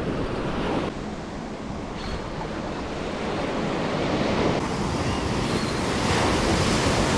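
Ocean surf: small waves breaking and washing up a sandy beach, with wind rumbling on the microphone.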